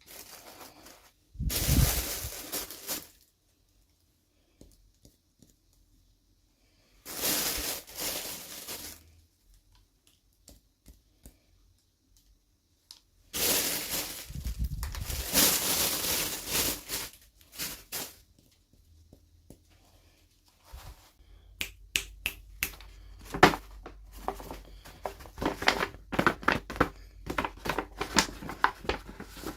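Toy packaging being opened by hand: tearing and crinkling in three separate bursts, then a quick run of sharp clicks and crackles near the end.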